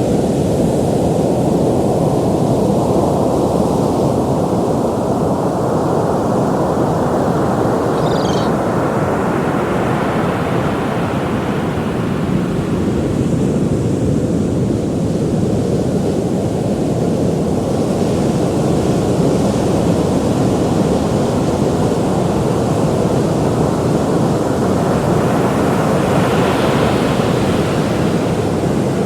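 Ocean surf: a steady low rush of waves, swelling into a brighter hiss as a wave breaks and washes in about ten seconds in and again near the end.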